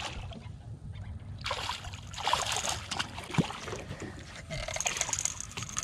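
Hooked largemouth bass splashing and thrashing at the water's surface beside the boat, in bursts about a second and a half in and again near the end, over a low steady rumble of wind on the microphone.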